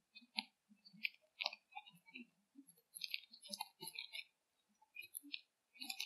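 Irregular munching and crunching mixed with sharp clicks, coming in quick clusters throughout. The recording is heavily noise-reduced, so each crunch and click stands alone against dead silence.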